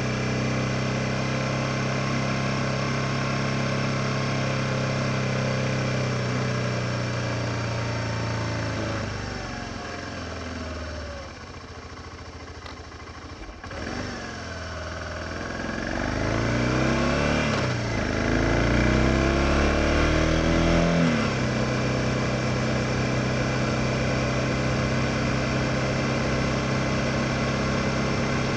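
2007 BMW F650 GS single-cylinder engine running at a steady cruise, then dropping in pitch as the bike slows to a low, quieter run about ten seconds in. About fifteen seconds in it accelerates again, rising in pitch through several gear changes, and settles back to a steady cruise.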